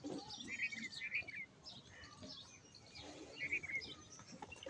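Small birds chirping: clusters of short, quick chirps about half a second in and again a little past three seconds.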